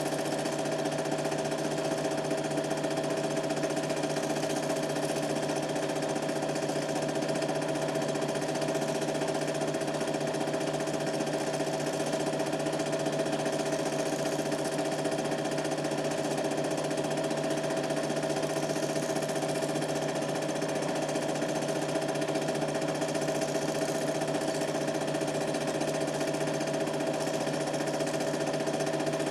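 Super 8 film projector running: a steady motor whir with the rapid mechanical clatter of the film transport and some hiss.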